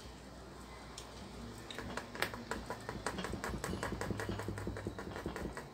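Round metal flour sieve shaken and tapped by hand to sift flour: a quick, even rattle of light knocks, about eight to ten a second, starting about two seconds in and stopping just before the end.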